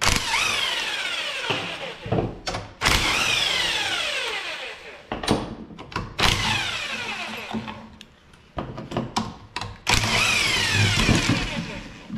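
Cordless impact wrench run in four bursts of about two seconds each, its pitch falling during each run as it hammers loose the 19 mm bolts of a snowmobile engine's mounting plate.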